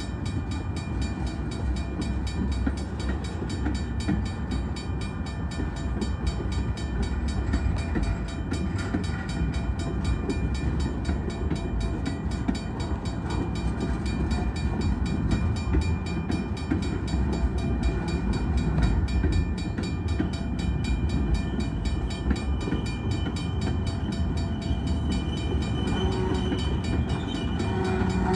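Freight train of tank cars and steel-coil cars rolling steadily through a road grade crossing, a low continuous rumble of wheels on rail, with the crossing bell ringing over it. A couple of higher tones come in near the end.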